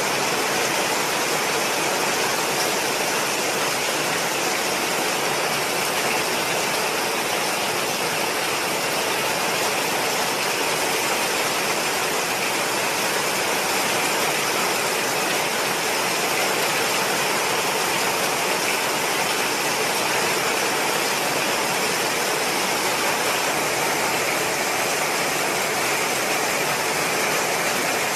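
Steady, unchanging rushing noise with no speech, like heavy storm wind and rain or running water.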